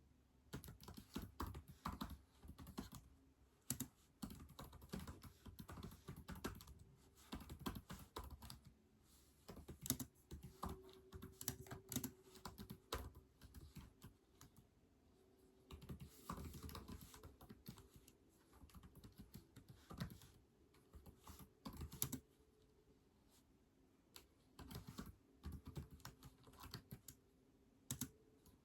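Typing on a keyboard: runs of quick keystrokes broken by short pauses of a second or two.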